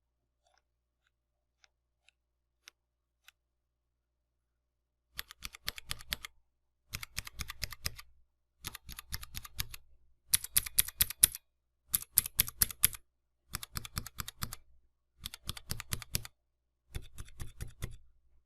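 Cherry MX mechanical keyboard switches being typed on in eight quick bursts of rapid clicking, each about a second long with short pauses between, after a few faint ticks. The two bursts in the middle are louder and sharper than the rest.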